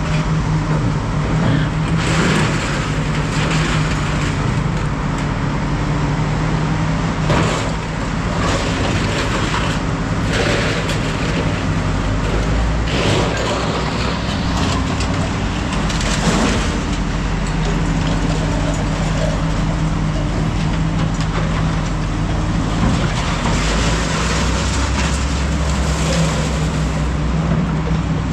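A heavy diesel engine running steadily, with several sharp metallic knocks over it.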